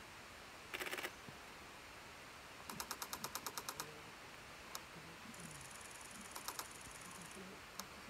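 Camera shutter firing in rapid continuous-shooting bursts: a short burst of about five clicks about a second in, then a longer run of about a dozen clicks at roughly ten a second around three seconds in, followed by a few single clicks. A thin high whine sounds for about two seconds in the second half.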